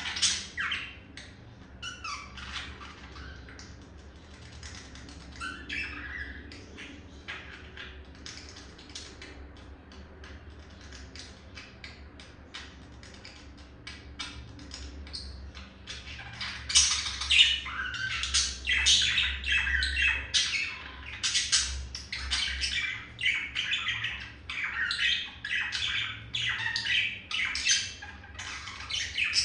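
Male budgerigar's courtship warble: a fast run of chirps, chatter and squawks, soft and broken at first, then louder and nearly unbroken from about halfway through.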